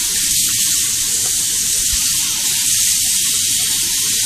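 Kitchen sink faucet running in a steady hiss, its stream splashing onto a cat's soaked fur as the shampoo is rinsed out.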